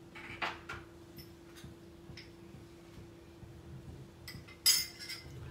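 A spoon scraping and tapping against metal and glass cookware as the crushed gulmohar flowers are scooped into the cheese sauce: a few light scrapes and ticks, then one loud sharp clink about four and a half seconds in. A faint steady hum runs beneath.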